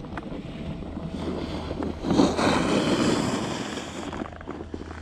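Skis sliding and scraping over hard-packed groomed snow, swelling loudest about two seconds in and easing off near the end, with wind noise on the microphone.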